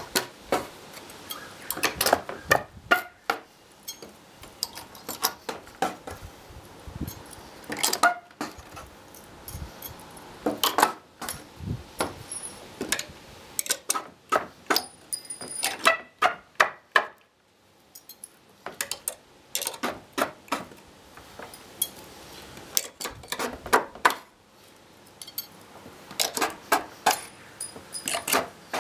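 Steel crowbar striking and levering at the long nails sticking through pallet boards: a run of sharp metallic clinks and knocks in quick clusters, with a pause of about a second past the middle.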